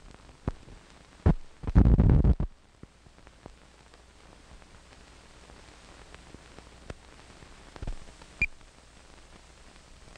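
Surface noise from a 16mm film soundtrack over the head leader: a faint steady hiss with scattered clicks and pops, and a loud rough crackling burst lasting under a second about two seconds in.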